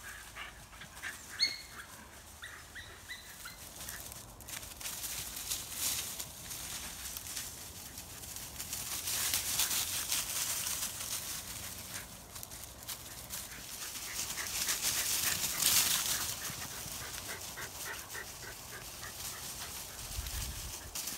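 Shetland sheepdogs running flat out through dry fallen leaves: a crackling rustle that swells and fades as they race past. There are a few short barks in the first few seconds.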